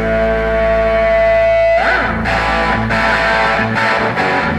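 Punk rock band playing with distorted electric guitar. A held guitar note rings for about two seconds, then the band comes in with struck chords broken by short gaps.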